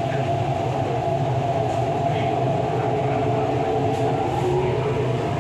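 MTR East Rail line R-Train (Hyundai Rotem electric multiple unit) running steadily along the line: an even rumble of wheels and running gear with a steady hum, no change in pitch.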